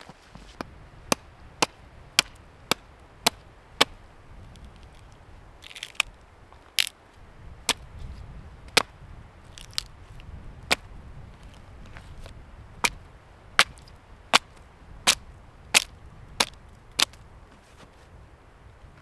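Wood being chopped: a run of sharp chops, about two a second at first, then more irregular with short pauses. A low wind rumble runs underneath.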